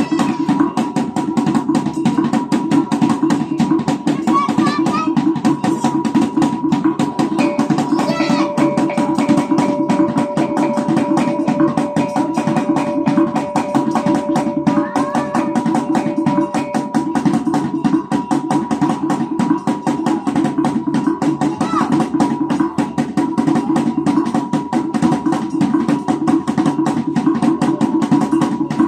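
Kulintang gong-and-drum ensemble playing. A row of small bossed gongs is struck rapidly with beaters over a fast-beating drum and large hanging gongs.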